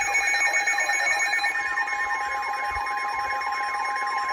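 Emergency alert tones: a warbling, siren-like tone sweeping up and down about three times a second over steady held alert tones.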